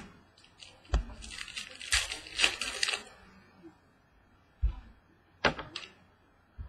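Trading cards and their packaging being handled on a table: a few sharp taps and clicks, with crinkly rustling between about one and three seconds in.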